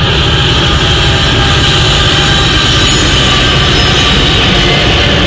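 CSX freight train's diesel locomotives passing close by, a GE Tier 4 unit leading a lashup of EMDs: a loud, steady engine rumble with high whining tones over it.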